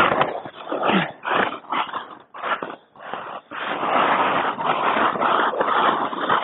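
Skis turning through deep powder snow: a rush of snow and wind noise in short bursts for the first few seconds, then one longer continuous rush.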